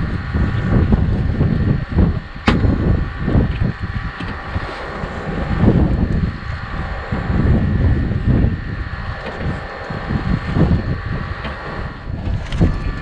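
Wind buffeting the action camera's microphone in uneven gusts, over a steady faint hum, with one sharp click about two and a half seconds in.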